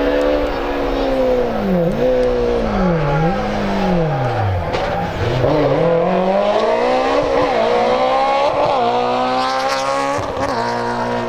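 Hill-climb race car engine working hard. Its note falls and rises again about three times in the first five seconds as the throttle is lifted and reapplied. It then climbs steadily under acceleration, with short dips at the gear changes.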